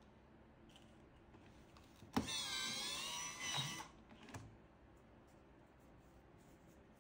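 Electric cigarette rolling machine's small motor starting with a click and running for under two seconds, its whine wavering in pitch, then cutting off, followed by a lighter knock.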